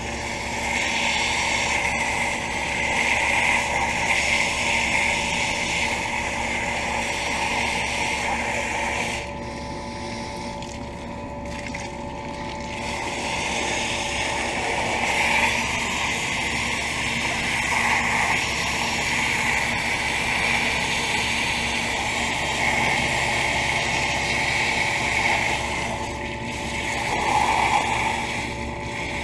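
Garden hose spray hissing against the coil fins of a central air conditioner's outdoor condenser, easing off for a few seconds near the middle and again briefly near the end. Beneath it runs the steady hum of a second central air conditioner, a York condenser unit, running.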